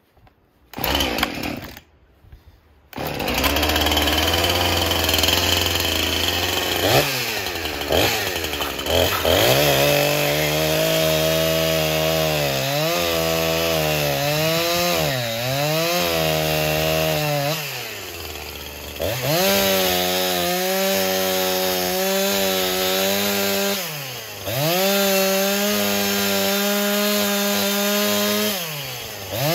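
Husqvarna 346 XP two-stroke chainsaw, freshly rebuilt with a new piston and ring after a scored cylinder, being started. It gives two short bursts, then catches and idles about three seconds in. It is then revved up and cuts through a wooden stump at high revs, its pitch dipping and recovering as the chain bites into the wood.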